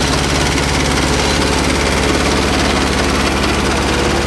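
Small ride-on garden tractor engine running steadily under way, pulling a loaded trailer.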